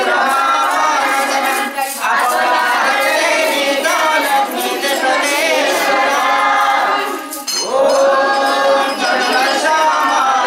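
Music: a song sung by several voices together, with jingling hand percussion.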